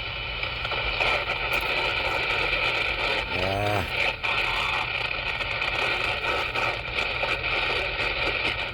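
CB radio receiver putting out steady static hiss and splatter, with a short warbling fragment of a tone or garbled voice about three and a half seconds in. The noise is interference (QRM) from adjacent-channel splatter that drowns out the other station.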